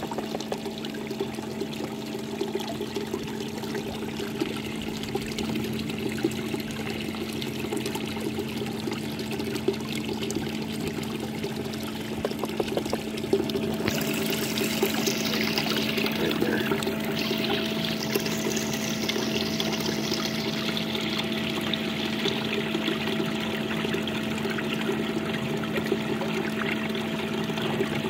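Water sloshing and trickling as a plastic gold pan is swirled and dipped in a tub of muddy water, washing material out over the riffles. A steady low hum runs underneath. About halfway through, the splashing grows louder and brighter.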